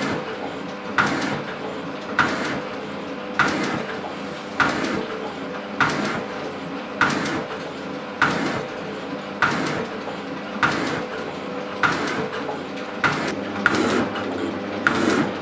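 Elliott shaping machine running, its ram stroking back and forth at about one stroke every 1.2 seconds, with a sharp clack on each stroke over the steady hum of the motor and gearing, as the tool takes cuts across a cast iron block.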